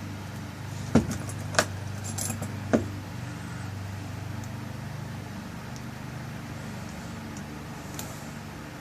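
Small sharp metal clicks and clinks from a lock cylinder and its tail piece being handled and screwed back on, a few close together in the first three seconds and one more near the end, over a steady low hum.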